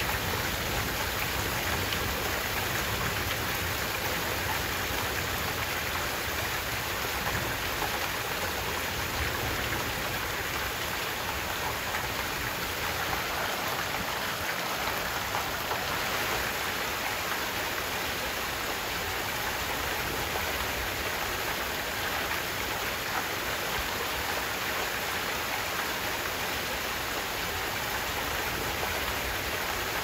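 Heavy rain falling steadily, with rainwater gushing from a gutter downspout onto flooded ground.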